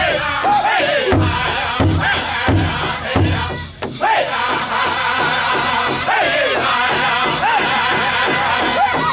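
Northern-style powwow drum group singing a chicken dance song: several voices singing high, wavering lines together over an even, steady beat on a large shared powwow drum. The sound dips briefly a little before the middle.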